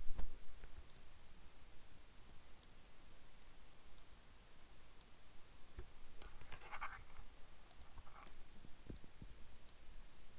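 Computer mouse clicking at a steady spacing of about one click every half second, with a quick run of clicks and a short rustle about six and a half seconds in.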